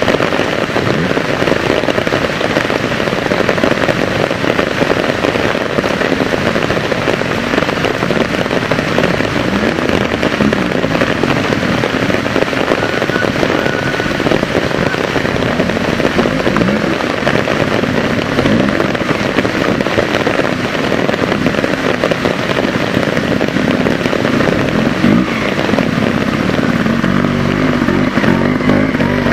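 Heavy rain falling steadily, a dense crackling hiss. Beneath it a trials motorcycle's single-cylinder engine revs in short rising and falling blips, most clearly near the end.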